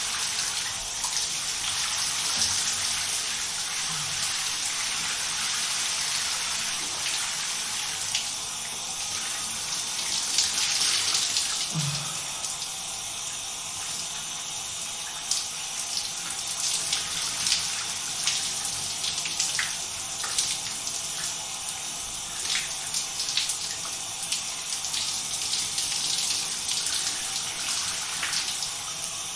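Shower running: a steady hiss of water spraying and splashing, swelling briefly partway through, with scattered spatters and drips through the second half.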